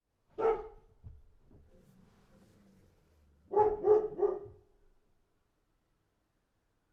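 A dog barking: a single bark, then about three seconds later a quick run of three barks.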